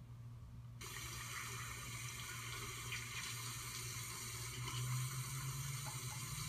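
Water running from a kitchen tap into a sink, turned on about a second in and then flowing steadily.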